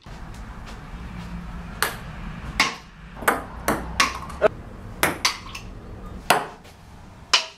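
Ping-pong ball bouncing off hard surfaces: a string of sharp, irregularly spaced clicks, about a dozen in all, over a low steady hum.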